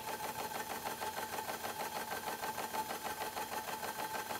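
Model traction engine running steadily on compressed air, with a rapid, even mechanical beat as it drives its crankshaft-driven water pump. The engine is running well.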